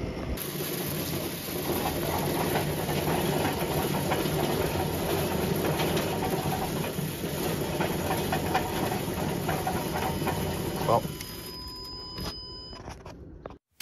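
Amazone seed drill's spiked land wheel being cranked round by hand to calibrate the seed rate, its metering drive running with a steady mechanical clatter of many small ticks that dies down about eleven seconds in.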